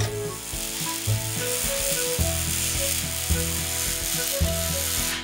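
Electric welding arc crackling steadily as a bead is run on metal.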